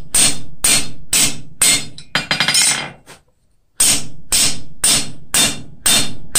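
Hand hammer striking a cold steel cross blank on an anvil at about two ringing blows a second, beating bevels into its edges. A little after two seconds there is a quick flurry of lighter ringing hits, then a pause of under a second, and the steady blows resume.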